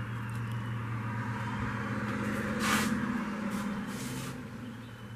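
Electric drive motor of a 1920s Wade bench lathe running with a steady low hum, easing off in the last couple of seconds. There is a brief hiss a little under three seconds in.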